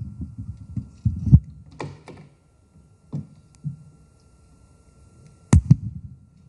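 Dull thuds and knocks over a low, uneven rumble, with the loudest pair of knocks about five and a half seconds in and a faint steady high tone running beneath.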